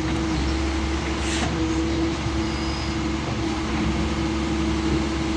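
Doosan DX140W wheel excavator's diesel engine running steadily under work, with a constant hum, and a brief hiss a little over a second in.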